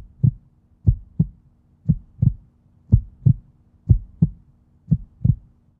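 Heartbeat sound effect: a slow, steady double thump repeating about once a second, six beats in all, over a faint low hum.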